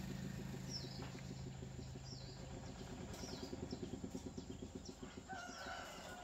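A rooster crowing about five seconds in, a long call that slides in pitch, over short high chirps from a small bird repeating about every second, and a low rapid throb in the background.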